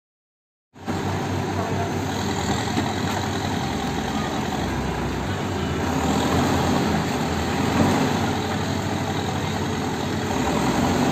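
JCB backhoe loader's diesel engine running steadily as the machine works a load of mud with its front bucket. The sound starts abruptly about a second in and stays level.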